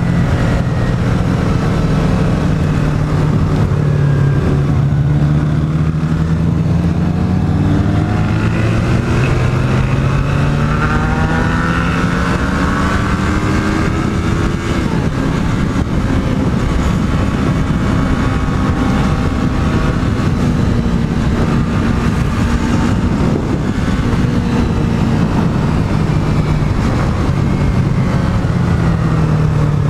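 Yamaha MT-03 motorcycle's parallel-twin engine running under way. Its pitch climbs for several seconds in the middle as the bike accelerates, then drops back and holds steady, easing down again near the end.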